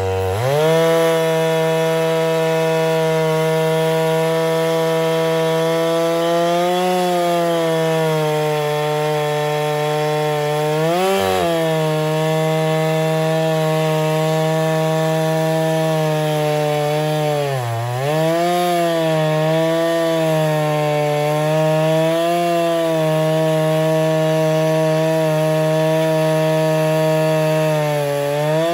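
Husqvarna 395XP two-stroke chainsaw on a Granberg Alaskan mill, running at high revs as it rips lengthwise through a fir log. The engine climbs back up to speed at the start, then dips briefly under load twice and recovers.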